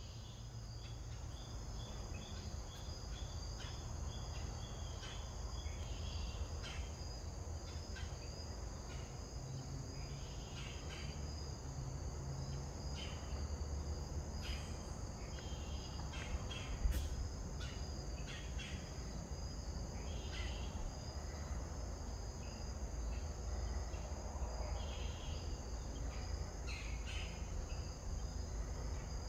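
Steady insect chorus, a continuous high-pitched trilling like crickets, with a low rumble underneath and scattered short ticks, one sharper click about halfway through.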